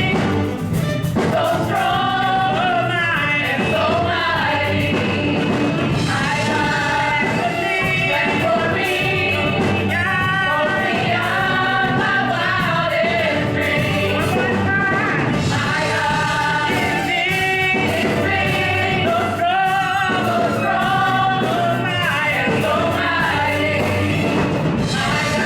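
A worship team and congregation singing a gospel praise song over a live band, at a steady loud level.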